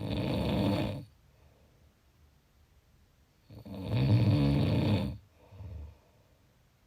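A person snoring: two long rasping snores about three and a half seconds apart, the second louder, followed by a short softer snort.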